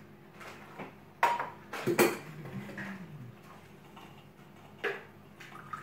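A few sharp clicks and clatters of small hard objects and packaging being handled, the loudest about two seconds in, with a softer click near the end.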